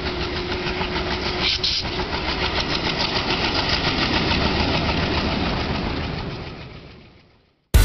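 Diesel locomotive engine running with a rapid, even beat, fading out over the last couple of seconds.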